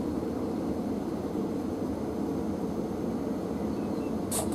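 Thameslink Class 700 electric train standing at the platform, its onboard equipment giving a steady hum and rush. Near the end comes a short, sharp hiss.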